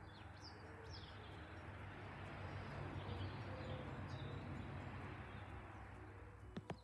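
Faint outdoor ambience: a few small birds chirp briefly over a soft, steady rushing background that swells in the middle, and two light clicks come near the end.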